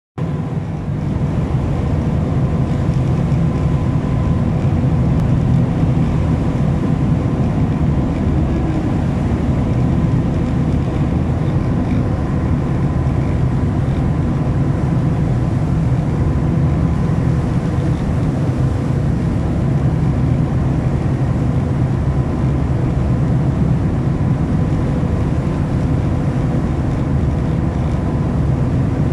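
A fast passenger catamaran ferry's engines drone steadily, a deep rumble with a faint steady hum above it, heard from the open deck.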